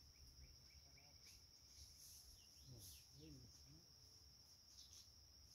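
Faint, steady high-pitched insect chorus, with a quick run of short chirps in the first second or so.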